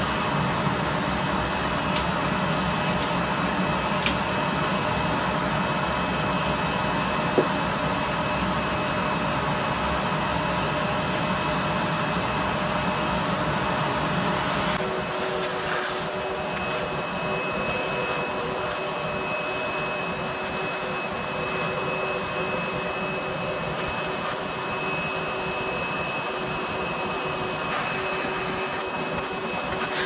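Vacuum cleaner running steadily, its hose sucking dust off a refrigerator condenser coil as it is brushed. About halfway through, the deep rumble drops and a steady high whistle comes in.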